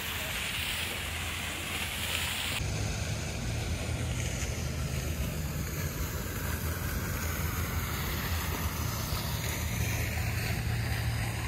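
Fountain water splashing steadily into its stone pool, with wind rumbling on the phone's microphone. The sound changes abruptly about two and a half seconds in, when the wind rumble grows stronger.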